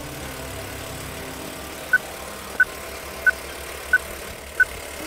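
Old-film countdown leader sound effect: a steady film-projector whir, with five short, identical beeps about two-thirds of a second apart starting about two seconds in.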